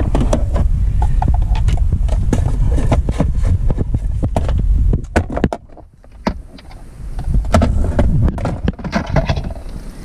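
Handling noise: rustling with many short clicks and knocks as things are moved about, over a low rumble that cuts out about halfway through.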